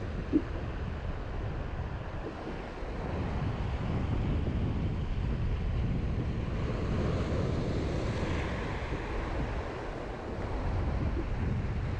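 Waves washing against a rock jetty and slapping the boat, with wind buffeting the microphone in a steady low rumble. A single short knock about half a second in.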